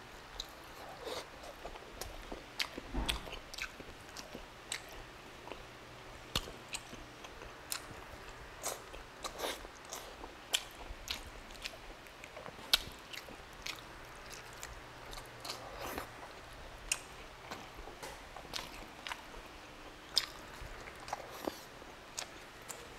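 Close-up chewing and wet mouth smacks of a person eating tender beef stew with rice by hand, a steady, irregular run of small sticky clicks and smacks.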